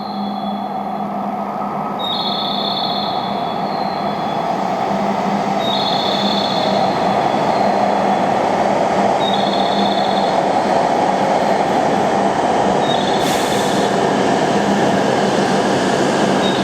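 E7/W7-series Hokuriku Shinkansen train pulling into the platform, its running and braking noise growing louder. A two-note electronic platform chime repeats about every three and a half seconds over it, and a short burst of air hiss comes about three quarters of the way through.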